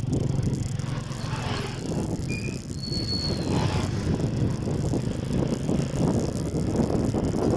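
Small motorcycle engine running steadily while riding, with wind and road noise, heard from on the moving vehicle.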